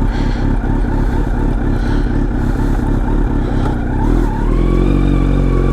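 Kawasaki Z900's inline-four engine running with a choppy, pulsing exhaust note, then held at a steady, slightly higher pitch from about four seconds in.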